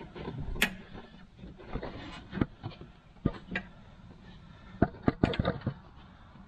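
Scattered light clicks and knocks of a BMR cradle lockout insert being worked and turned by hand in a Camaro's rear cradle bushing, fiddled until it drops in. A quick cluster of sharper clicks comes about five seconds in.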